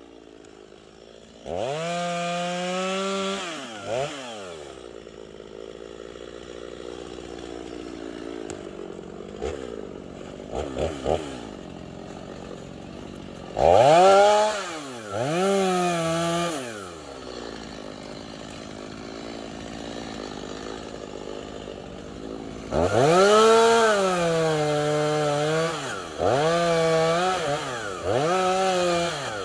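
Two-stroke chainsaw revving up to full speed in several bursts, dropping back to idle in between. The bursts come in three groups: one near the start, two in the middle, and three close together near the end.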